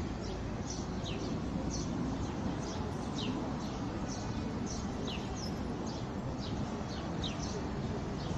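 Small birds chirping: short, falling high chirps, about two a second, over a steady background hum of open-air ambience.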